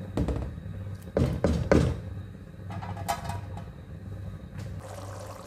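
Ladle stirring rice and spiced water in a cooking pot, knocking against the pot several times in quick succession, over a steady low hum.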